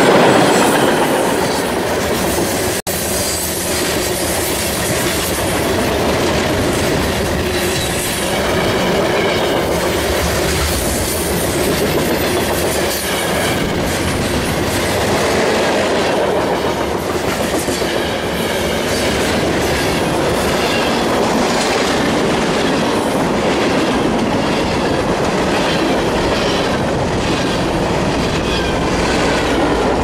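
Freight train cars rolling past close by: a steady rumble of steel wheels on rail with a rhythmic clickety-clack over the rail joints. A split-second dropout comes about three seconds in.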